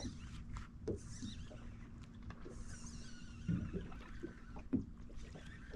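Fishing reel and line working against a hooked striped bass: several long whines that fall in pitch, over a steady low hum, with a few short thumps about a third and four-fifths of the way in.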